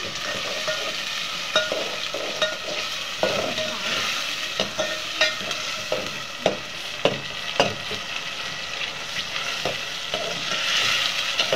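Onions and tomatoes sizzling in mustard oil in an aluminium pot, stirred with a metal slotted spoon that knocks and scrapes against the pot at irregular intervals. The tomatoes are cooking down in the oil to soften for the masala base.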